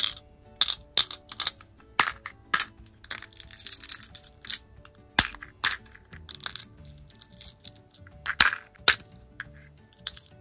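Irregular sharp clicks and small clinks as necklaces and stud earrings are handled and put into a little pill case, with the loudest clicks about five seconds in and near the end, over soft background music.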